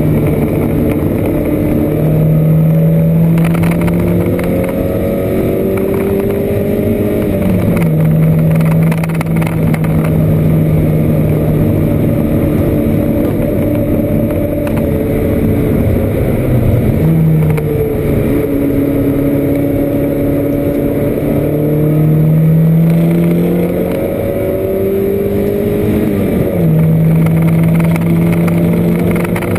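Porsche 924 race car's four-cylinder engine under hard load, heard from inside the cabin. The note climbs slowly and drops back in pitch three times: about a quarter of the way in, just past the middle, and near the end.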